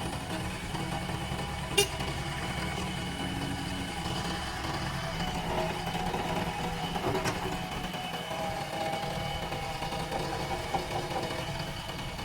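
JCB backhoe loader's diesel engine running steadily, with a sharp click about two seconds in and a fainter one about seven seconds in.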